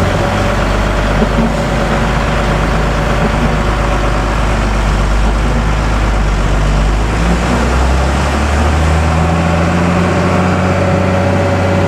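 Intercity bus engine and road noise heard from inside the passenger cabin, running steadily; the low engine note rises about eight seconds in as the engine speeds up.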